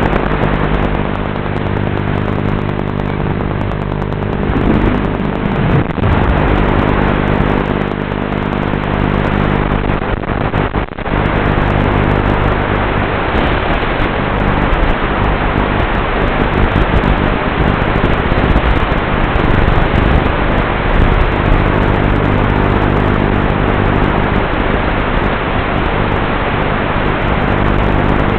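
Walkera F210 racing quadcopter in flight: its motors drone steadily under a loud rushing hiss, with a brief change in pitch about five seconds in and a short dip about eleven seconds in.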